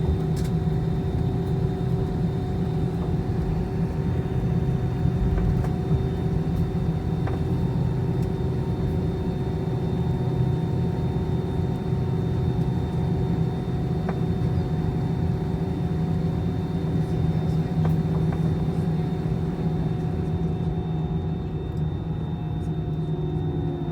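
Airliner engines running steadily: a low rumble with several steady humming tones. Near the end a few of the tones slide downward in pitch.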